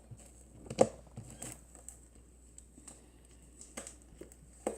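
Soft slime being kneaded and stretched by hand, giving scattered short sticky clicks and pops, the loudest a little under a second in and another near the end.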